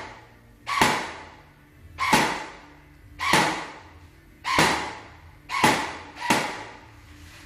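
Airsoft gun fired in single shots, six sharp cracks about a second apart, the last two closer together, each trailing off with an echo.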